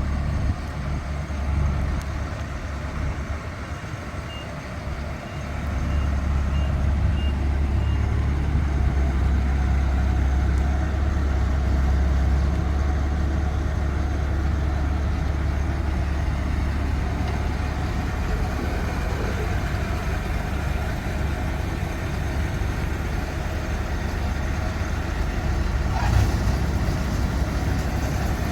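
Rice combine harvester's diesel engine running steadily with a deep rumble. Between about four and eight seconds in, a row of about six short high beeps sounds, like the machine's warning or reversing alarm.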